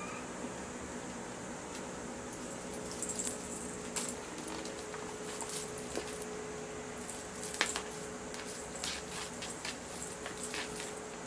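Scattered light clicks and rustles as cats paw and bat a feather wand toy on a bamboo floor mat, more frequent after the first couple of seconds, over a faint steady hum.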